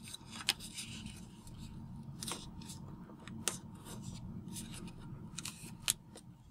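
A square sheet of origami paper being folded and pressed flat by hand: faint paper rustling and rubbing with a few short, sharp crackles as the crease is pressed in.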